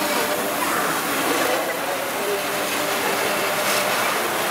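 Rows of firework fountains spraying sparks in a pyrotechnic waterfall, a steady rushing hiss with a fine crackle.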